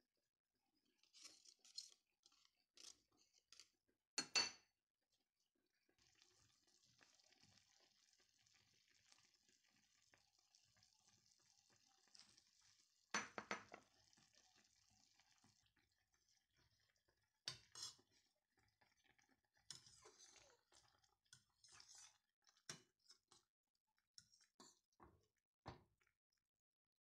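Scattered scrapes and taps of a hand grater as lemon zest is worked off it, then a faint steady hiss of apple slices simmering in water in a stainless steel pot, broken by a sharp knock. Near the end, separate clinks and knocks of a spoon against the pot while stirring.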